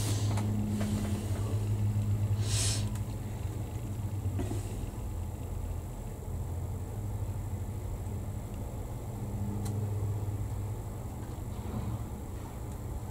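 A steady low hum, with a few brief soft rustles, the clearest about two and a half seconds in.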